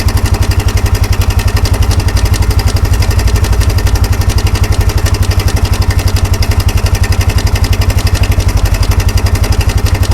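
Kawasaki 300 4x4 ATV's single-cylinder four-stroke engine running steadily at idle, with even, rapid firing pulses.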